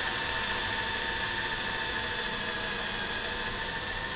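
Cordless electric drill running at a steady speed with a steady whine as it bores a hole through a quarter-inch mahogany board.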